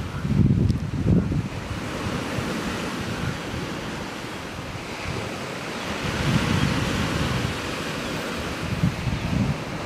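Wind buffeting the microphone in gusts, about a second in, around six seconds and near the end, over a steady hiss of surf.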